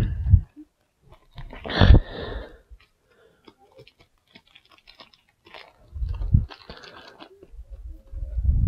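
Foil wrapper of a Magic: The Gathering booster pack crinkling and tearing as it is opened by hand. There is a loud crackle about two seconds in, then scattered small crackles, and a few dull handling bumps later on.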